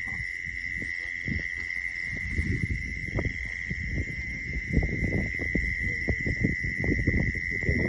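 Steady high-pitched trill of crickets in the night, unbroken throughout, over irregular rustling and knocking from a mesh net being handled in grass.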